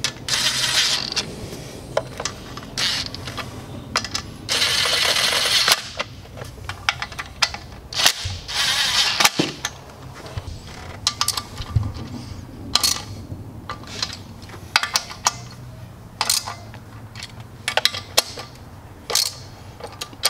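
Cordless DeWalt driver with a hex bit running bolts down into an aluminium intake manifold in several short bursts, the longest about a second, amid sharp metallic clicks and clinks of hand tools and ratchet.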